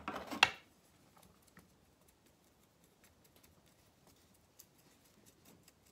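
A brief louder rustle of handling at the start, then faint, scattered ticks and rustles of a wooden stick teasing out a bonsai's root ball and loosening soil.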